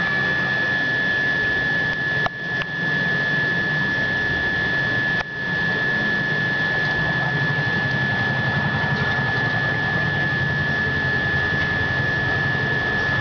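Steady machine noise: a hiss and low hum with a constant high-pitched whine, broken by two brief dropouts about two and five seconds in.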